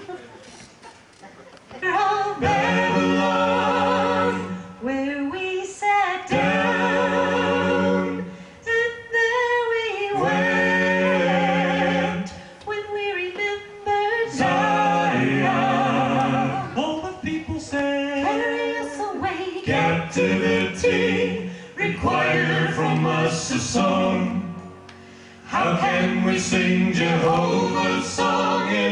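A small group of male and female voices singing a song together in harmony, starting about two seconds in, in phrases broken by short pauses.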